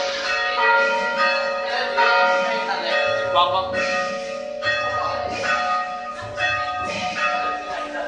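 Rope-pulled church bells tolling a requiem knell for the dead. Several bells are struck in turn about once a second, and their long ringing tones overlap.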